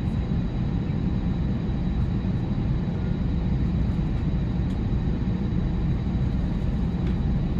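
Steady low rumble inside the cabin of an Airbus A320-family jet on the ground before takeoff, with a faint steady high-pitched tone above it.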